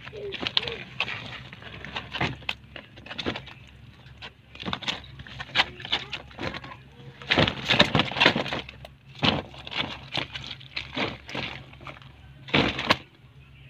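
A hand rummaging through a heap of live, wet bullfrogs: irregular rustling, crackling and wet scraping as the frogs are shifted and grabbed, louder in bursts about seven to eight seconds in and again near the end.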